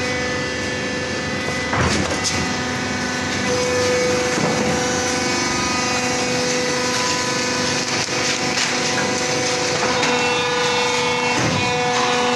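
Injection moulding machine running: a steady machine hum with several held tones that shift a little in pitch, and a couple of short knocks, one about two seconds in and one near the end.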